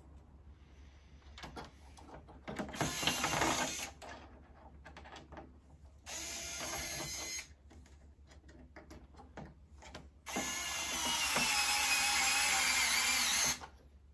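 Power drill-driver running three times, driving screws that fasten the mini split's coil and motor bracket to the unit's body; the third run is the longest, about three seconds.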